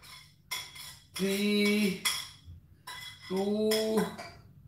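Speech only: a man counting aloud slowly, two drawn-out counts about two seconds apart.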